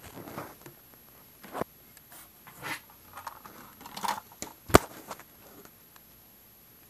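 Handling noise: scattered rustling and scraping with a few clicks, one sharp click a little under five seconds in the loudest.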